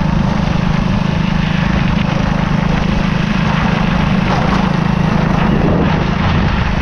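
Small motorcycle engines running steadily while riding, with rushing wind on the microphone.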